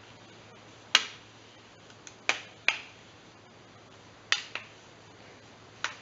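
Plastic clips of a Toshiba R830 laptop's screen bezel snapping into the lid as it is pressed home: about five sharp, irregularly spaced pops, the loudest about a second in.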